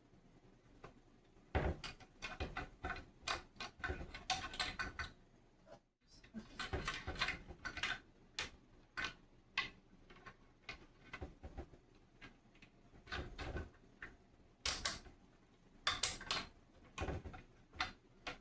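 Plastic sliding U-shaped cabinet lock clicking and rattling in irregular clusters as it is handled and fitted onto cabinet handles. The sound cuts out briefly about six seconds in.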